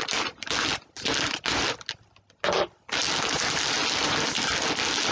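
Noisy parcel packaging crinkling and crackling as it is torn open by hand: several short bursts with gaps at first, then steady crinkling from about three seconds in.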